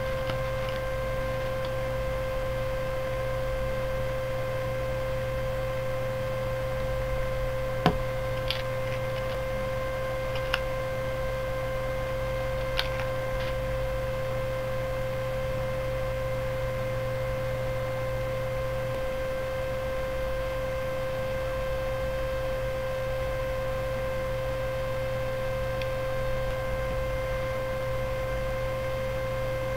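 Steady electrical hum: a low buzz with a thin constant whine above it. A few faint clicks in the first half come from handling a small plastic puzzle cube while stickers are pressed on with a pointed tool.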